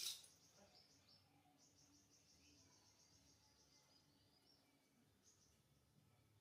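Near silence: faint outdoor ambience with a high, rapidly pulsing chirr for a few seconds and a brief rustle right at the start.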